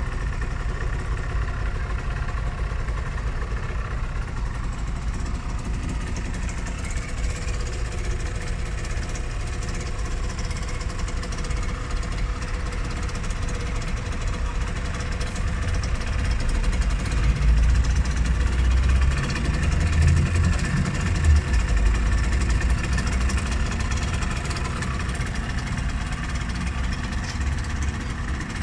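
Suzuki ZR50S's 49 cc two-stroke single-cylinder engine idling steadily through its Micron exhaust, louder for a few seconds past the middle.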